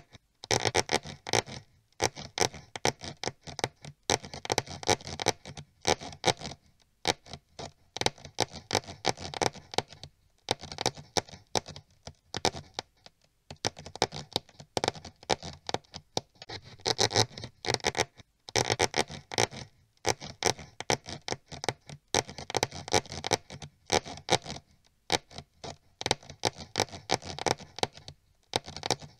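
Mouse scurrying and scratching sound effect: fast runs of small scratchy clicks lasting a second or two each, broken by short pauses.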